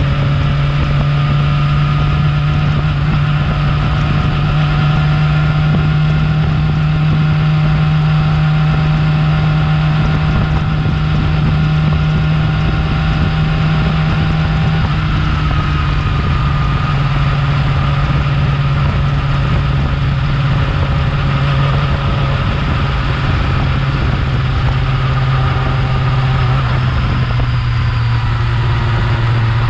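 Yamaha R6 inline-four engine with its stock exhaust, running steadily at a constant speed. Its pitch drops slightly about halfway through and again near the end.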